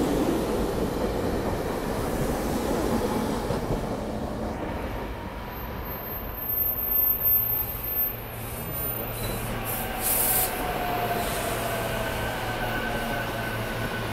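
SEPTA Regional Rail train cars rolling past close by on the rails, fading out after about four seconds. Then a second SEPTA Silverliner electric train coming in on the far track, with a steady hum and a faint gliding whine, and a few short loud knocks in between.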